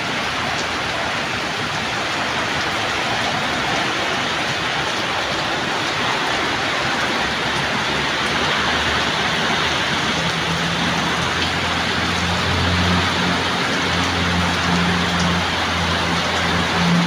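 Heavy rain in a windstorm, pouring with a steady loud hiss. About ten seconds in, a low steady hum joins it.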